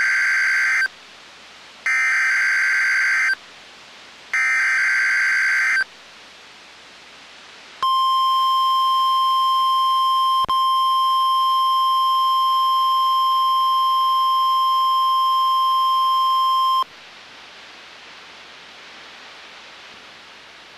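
NOAA Weather Radio test signal: the SAME (Specific Area Message Encoding) digital header of three buzzy data bursts, each about a second and a half long, then the steady 1050 Hz warning alarm tone held for about nine seconds with one brief click. The tone cuts off suddenly to faint radio hiss.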